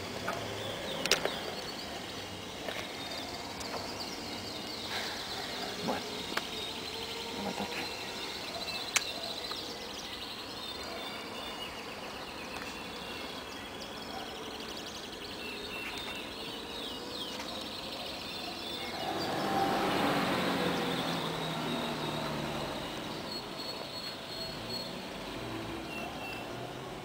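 Outdoor ambience with a few sharp clicks in the first ten seconds, as of ink pots handled in a plastic case. A passing vehicle swells and fades about twenty seconds in.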